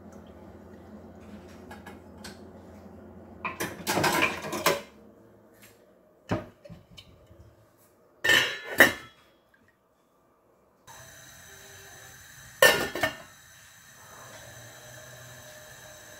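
Stainless steel cooking pot and its metal lid clattering and clanking as the lid is handled and fitted on, in four separate bursts of knocks.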